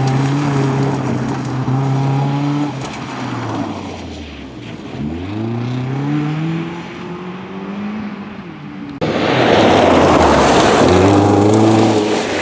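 Audi rally car's engine on a loose gravel stage: held at steady revs, dropping off about three to four seconds in, then climbing again as it accelerates away. About nine seconds in the sound cuts abruptly to the car much closer and louder, engine running under the hiss of gravel thrown up by the tyres.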